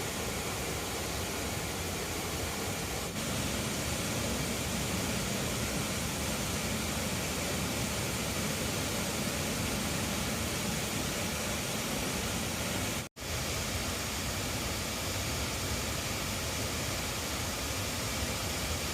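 Waterfall rushing: a steady, even wash of falling water, broken by a brief cut to silence about thirteen seconds in.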